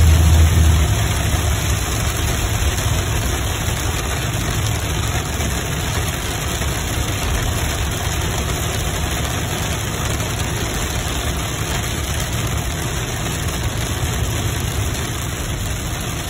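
Steady low rumble of a car's engine and tyres heard from inside the cabin while driving, with an even hiss over it; slightly louder in the first second.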